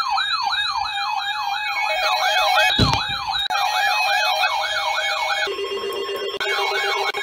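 Electronic siren tones: a fast yelp sweeping up and down about three times a second, joined about two seconds in by a two-note hi-lo warble. There is a single thump near the middle. Later the yelp cuts out briefly, a steady lower tone holds, and then the yelp resumes.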